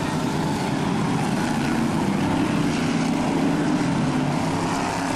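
Several banger racing cars' engines running together as a pack races round the oval, a steady, dense engine noise with no breaks.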